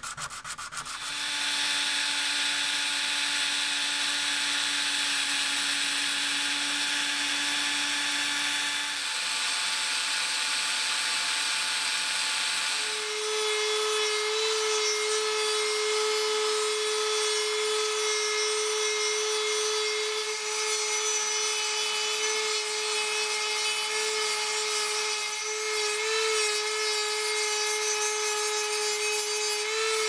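Handheld rotary tool with a small sanding drum running against an antler knife handle: a steady motor whine over the rasp of the sanding. The whine shifts partway through and settles at a higher pitch.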